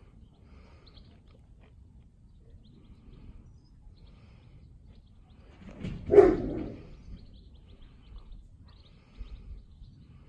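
A Cane Corso puppy gives a single short, loud bark about six seconds in while playing, with a few faint smaller sounds from the group afterwards.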